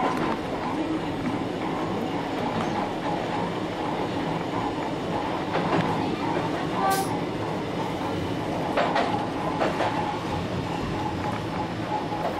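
Dubbed-in recording of an electric train running on rails: a steady rumble with a few clicks along the way.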